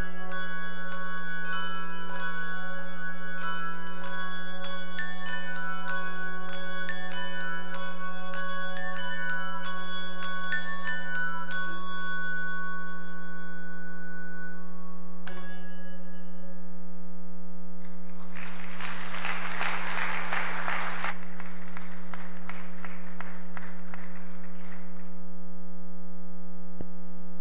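Youth handbell choir ringing a piece: many struck bell notes ring out over one another for about twelve seconds, the last chord dies away, and one more strike sounds near the middle. A few seconds later the congregation applauds briefly. A steady low hum sits underneath.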